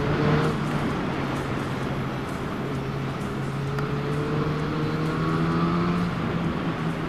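Motorcycle engine running steadily while riding, its pitch rising slightly now and then, over a constant rushing noise.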